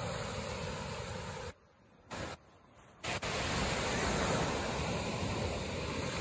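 Small ocean waves breaking and washing up on a sandy beach: a steady rushing surf noise that drops out abruptly for about a second and a half partway through, then returns slightly louder.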